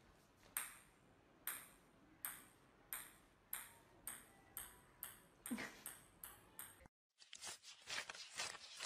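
Ping-pong ball bouncing on a hard floor: about a dozen sharp ticks, each with a short ring, coming steadily faster. Near the end it switches to a fast flutter of banknotes being riffled.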